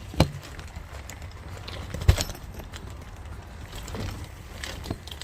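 A few sharp clicks and knocks, the loudest about two seconds in, over a low steady rumble, as the fabric door of a pop-up greenhouse is rolled up and its small fasteners are handled.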